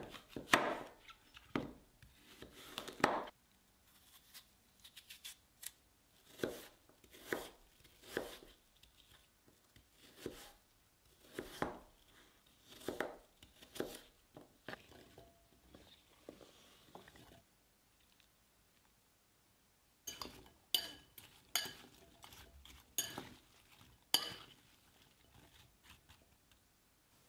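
Kitchen knife cutting through peeled apple on a bamboo cutting board, one stroke about every second. After a short pause, sharper clinks of a metal fork against a glass bowl as the apple chunks are stirred.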